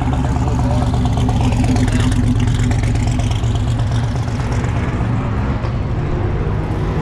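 Car engine running loudly with a steady low rumble that eases off slightly in the second half.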